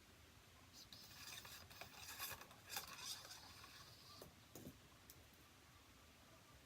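Faint handling sounds while a rifle is cleaned: rustling and scraping for about three seconds, then a few light clicks.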